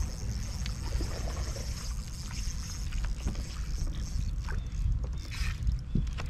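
Steady low rumble of water and wind around a bass boat, with scattered clicks and light knocks from rod-and-reel handling on the deck. The sharpest knock comes near the end.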